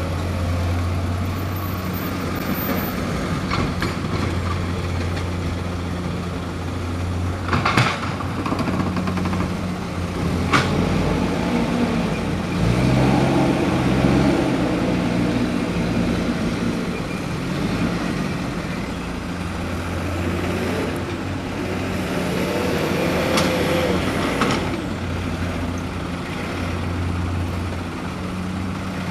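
Diesel dump truck engines running at a steady idle. The engine sound shifts for a few seconds near the middle, and a few short sharp sounds come through.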